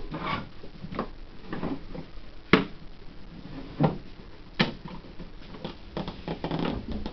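Irregular knocks and clatters of objects being handled, with a sharp click about two and a half seconds in and two louder knocks a little after.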